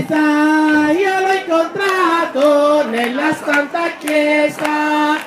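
A group singing an Italian devotional song, one lead voice on top holding long, steady notes.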